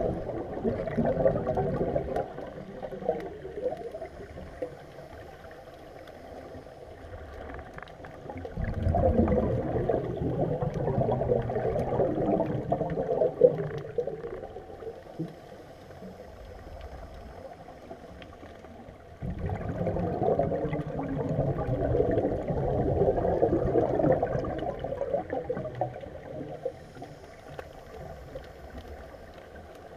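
Scuba regulator exhaust bubbles gurgling underwater as a diver breathes out, in three long bursts: one ending about two seconds in, one from about eight and a half to fourteen seconds, and one from about nineteen to twenty-five seconds. Quieter stretches lie between them.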